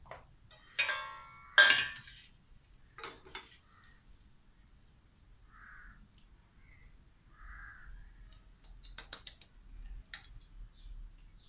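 A stainless-steel plate is set down on a stone counter with a few clinks, one ringing briefly. A steel mixer-grinder jar is then tipped over it to empty out breadcrumbs, and a quick run of clinks comes near the end as the jar is knocked against the plate.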